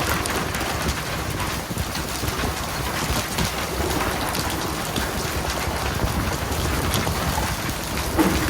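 Steady patter of water falling on a surface, like heavy rain, thick with small ticks, over a low engine hum. A brief louder knock near the end.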